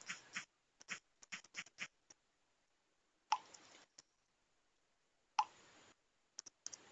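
Soft clicks of taps on a smartphone touchscreen keyboard, and twice, about two seconds apart, a short pop with a brief tone, the sound of a WhatsApp message being sent.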